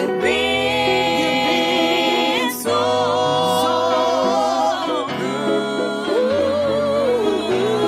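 Gospel music: voices singing long, wavering held notes over a low accompaniment that moves in steps.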